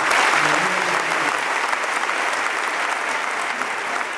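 Stadium crowd applauding. The clapping starts abruptly, is loudest in the first second or so, then eases a little and holds steady.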